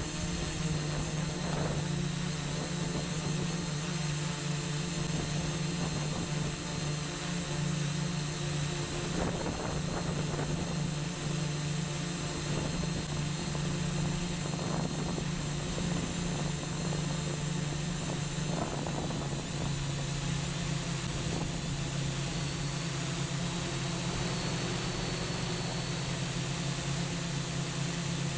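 Eight 880kv brushless motors turning 10x4.7 slow-fly propellers on a 3D-printed octocopter in steady flight, heard from the camera on board: an even low propeller hum with a steady high whine above it.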